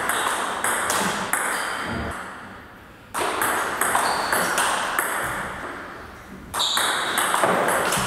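Table tennis rally: the ball clicks sharply off rubber bats and the table, several hits in quick succession. A rushing hiss comes in suddenly three times, about 3 and 6.5 seconds in, and fades over a couple of seconds each time.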